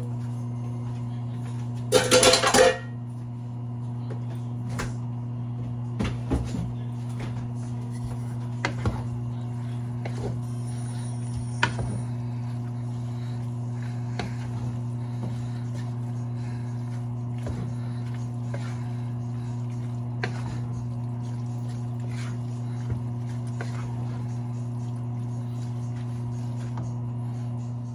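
Steady mains-pitched hum of a running kitchen appliance, with scattered clinks and knocks of pots, dishes and utensils being handled and one loud clatter about two seconds in.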